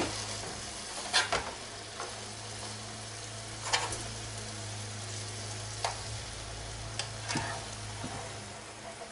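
Chicken kebab mince sizzling as it fries in a little oil in a non-stick frying pan. Pieces are turned over with a spatula, giving about half a dozen short taps and scrapes of the utensil on the pan.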